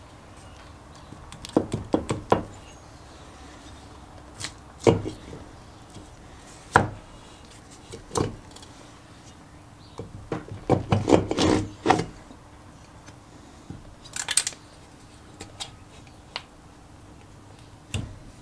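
Cylinder barrel of a Kawasaki KF100 engine being worked loose and lifted off its studs by hand: irregular metal knocks and clicks in clusters, busiest about eleven seconds in, with a short scrape a few seconds later.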